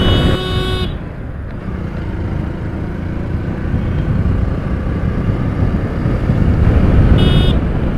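Wind rush and engine noise on a helmet-mounted camera of a motorcycle being ridden at speed. A vehicle horn beeps for about a second at the start and briefly again near the end.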